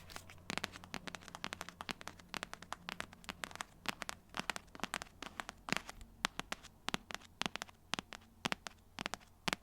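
Fingernails tapping quickly and irregularly on a cardboard box: sharp clicks, several a second.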